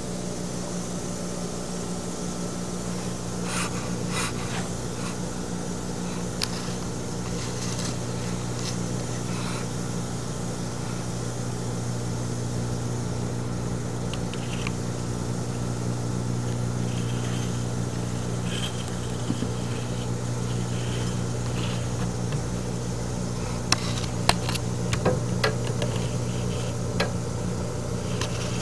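Steady low mechanical hum, with scattered small clicks and scrapes that come more often near the end.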